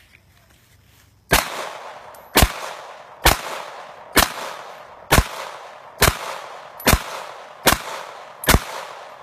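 Nine pistol shots from a 9mm handgun, fired at a steady pace about one a second, each crack trailing off in a short echo.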